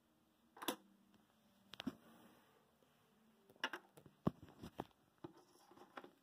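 Modular power-supply cables with black plastic connectors being handled: a scattered series of light knocks and clicks, two near the start and a cluster in the second half, as the cables and connectors are picked up and put down.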